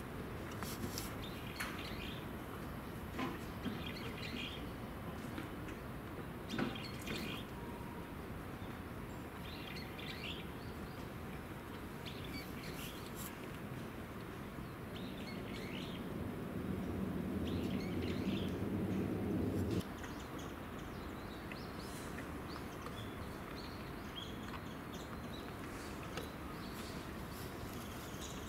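Small birds chirping in short calls every second or two. In the middle a low steady hum builds up over a few seconds, then cuts off suddenly about twenty seconds in.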